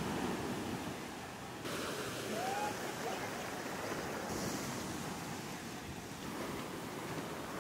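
Shallow surf washing in and out around waders and their nets, a steady rush of water.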